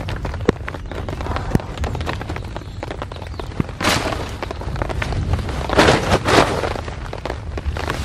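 Thunderstorm: thunder rumbling steadily, with rain drumming and dripping on the tent and tarp. There are two louder surges about four and six seconds in.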